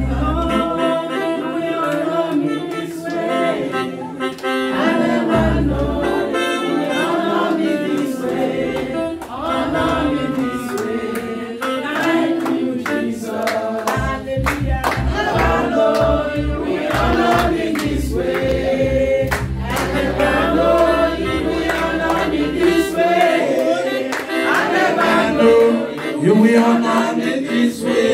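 A group singing a gospel praise song with band accompaniment. A steady bass beat comes in about halfway through and drops out near the end.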